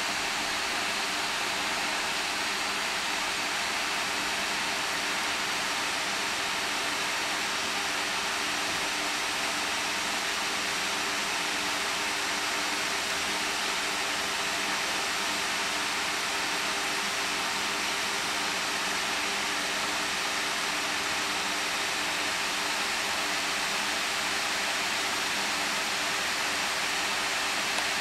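Cooling fans of four reference GeForce GTX 480 graphics cards in 4-way SLI running flat out under a FurMark stress load: a loud, steady rush of air, over 76 decibels, with a faint low hum underneath.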